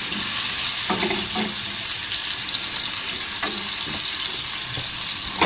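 Button mushrooms and vine tomatoes sizzling steadily in butter and oil in a non-stick frying pan on a gas hob, stirred with a utensil.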